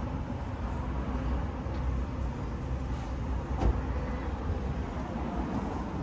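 Steady low outdoor rumble, with one short knock a little past halfway.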